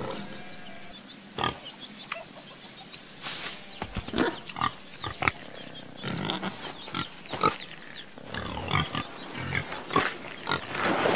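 Cartoon pigs grunting: short, separate grunts scattered through the whole stretch.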